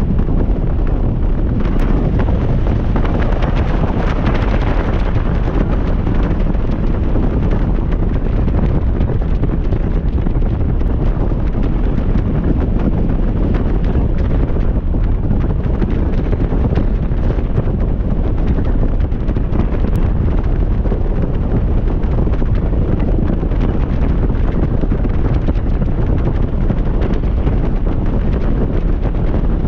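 Heavy wind buffeting the microphone on a motorcycle in motion: a steady, loud rumble.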